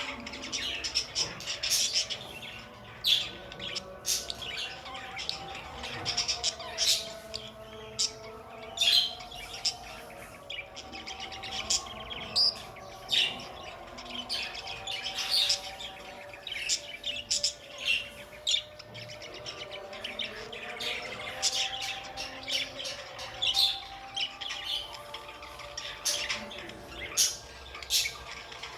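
Budgerigars chirping and chattering, with many short, sharp chirps coming in irregular bursts.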